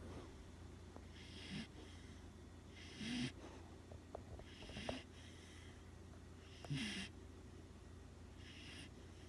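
A sleeping pet snoring: short wheezy snores about every one and a half to two seconds.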